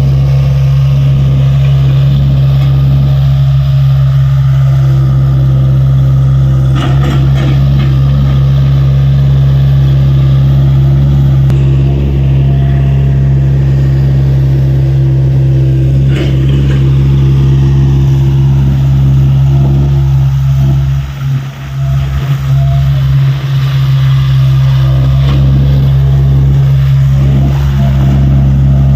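Tata Hitachi EX70 excavator's diesel engine running steadily under working load, with a few sharp knocks and a brief drop in level a little past two-thirds of the way through.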